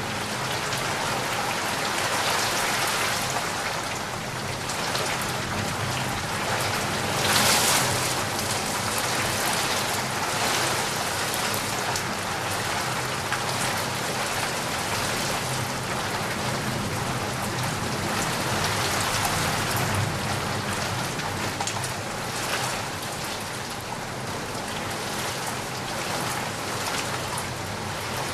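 Heavy rain falling steadily on surfaces, a dense even hiss of drops, with one brief louder surge of rain about seven seconds in.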